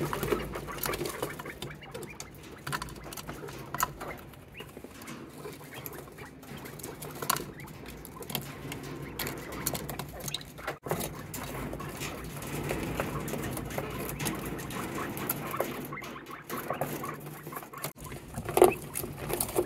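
Quail pecking at grubs in a plastic feeder, an irregular run of quick taps, with soft squeaky chirps between them. One louder bump comes near the end.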